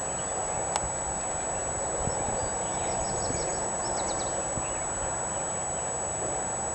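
Muffled hoofbeats of a ridden horse cantering on soft sand arena footing, under a steady background hiss. A few quick high chirps about three to four seconds in.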